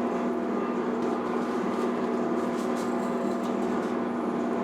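Steady hum of a motor or fan, holding one constant tone over a faint even hiss, with no change in pitch or level.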